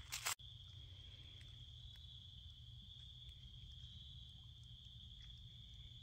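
A last crunch of dry leaves underfoot right at the start, then faint, steady, high-pitched trilling of insects that carries on without a break.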